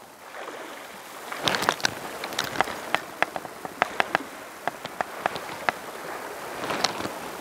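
Seawater lapping and splashing among shore rocks: a steady hiss with irregular sharp ticks and splashes.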